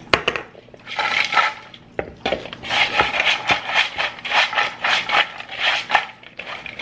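Tortilla chips being shaken and tossed in a plastic mixing bowl to coat them with salt, rattling and scraping against the bowl. A few sharp clicks come first, then about a second in rhythmic shaking sets in, about three shakes a second.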